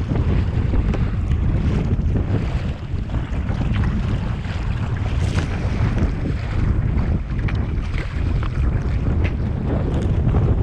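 Wind buffeting the microphone in a loud, gusting rumble, with small splashes and lapping of water on the lake.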